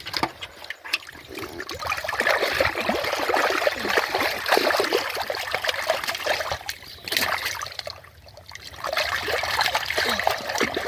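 Shallow muddy water splashing and trickling as hands grope through it for fish, with a short lull near the end.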